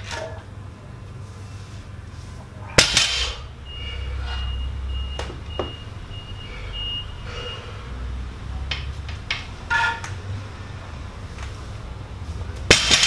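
A heavily loaded barbell clanks down onto the lifting blocks after a block pull, once about three seconds in and again near the end, with its plates rattling. A few smaller knocks come in between.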